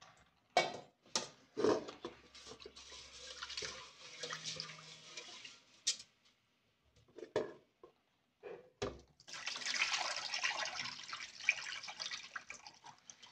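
White rice being rinsed by hand in an aluminium pot of water: a few knocks against the pot and two spells of sloshing water. Near the end the pot is tipped and the rinse water pours off.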